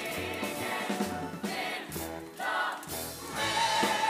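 Show-tune music: voices singing over instrumental accompaniment, with one voice holding a long, wavering note near the end.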